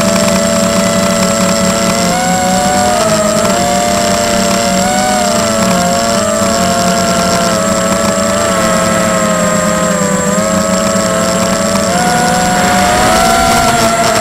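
Tarot 250 racing quadcopter's brushless motors and propellers whining in flight, heard from the onboard camera. Several close tones waver up and down together as the throttle changes, dipping about ten seconds in and climbing again near the end.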